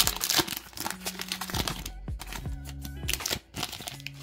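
Foil booster-pack wrapper crinkling and trading cards being slid out and handled, with dense clicks and rustles in the first two seconds and sparser ones after. Background music with a steady bass line plays underneath.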